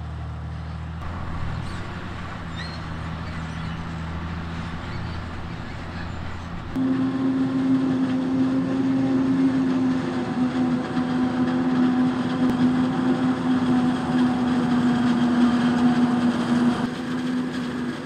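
Heavy diesel farm machinery running during maize harvesting: a low, steady engine drone, then about seven seconds in an abrupt switch to a louder sound with a strong steady hum that holds.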